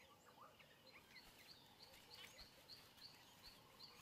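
Near silence: faint natural ambience with soft, high, short chirps repeating about three times a second from about a second in.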